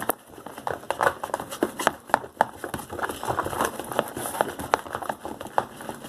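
Fluffy slime being mixed, making a quick irregular run of sticky clicks and crackles.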